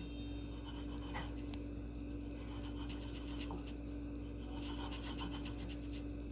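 Faint rubbing and scraping of a chocolate half-shell pressed and slid on a warm stainless steel pan, melting its edge for sealing, over a steady hum.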